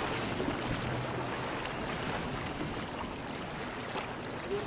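Steady rushing sea-water noise, with a few faint clicks.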